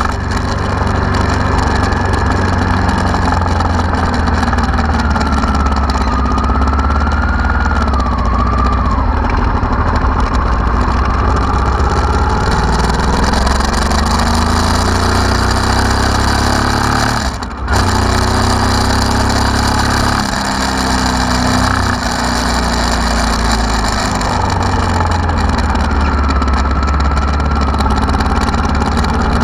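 1992 Honda Africa Twin RD04's 750 cc V-twin engine running steadily, with the revs rising and falling a few times around the middle and a brief dip just past halfway.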